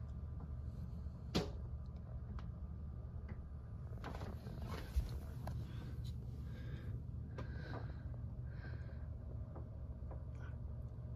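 Handling noise from a camera being moved along bookshelves: a sharp click about a second in, then soft rustles and light knocks with a short thump near the middle, over a steady low room hum.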